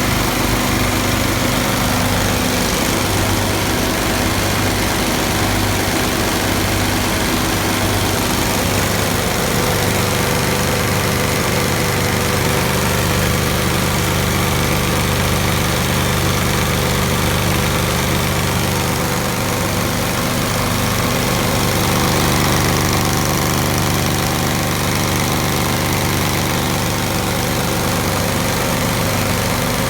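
Quincy 13 HP two-stage cast-iron air compressor running steadily at a constant pitch.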